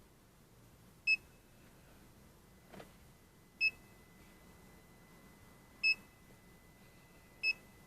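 Handheld automotive scan tool beeping on button presses while erasing stored trouble codes: four short, high beeps, unevenly spaced one to two and a half seconds apart.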